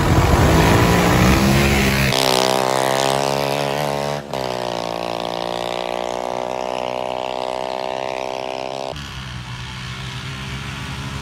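Engines of a homemade 200cc buggy and a Toyota Hilux turbo-diesel pickup at full throttle in a drag race. The pitch rises as they accelerate, then holds as a steady high drone, and the sound changes abruptly a few times.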